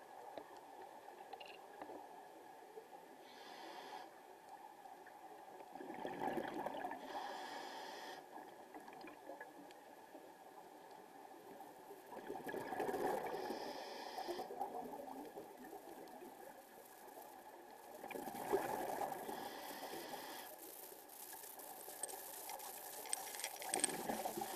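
Scuba diver breathing through a regulator underwater: a gurgling rush of exhaled bubbles about every six seconds, with a short hiss of inhalation near each one.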